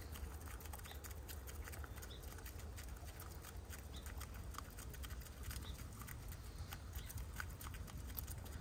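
Several hens pecking seeds from a bare palm: a rapid, irregular patter of beak taps, over a low steady rumble.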